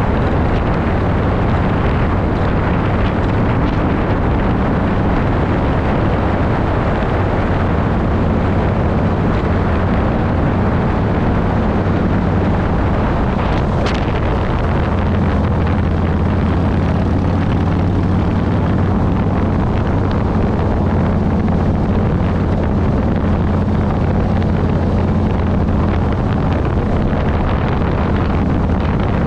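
Motorcycle engine running steadily while riding at road speed, with heavy wind noise on the microphone. The low engine note grows a little stronger about halfway through.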